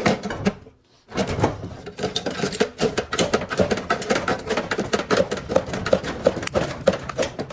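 Rapid metallic clicking and rattling of hand tools working on a tankless water heater's metal parts. After a brief pause about a second in, the clicking is fast and steady, with a repeating knock about three times a second.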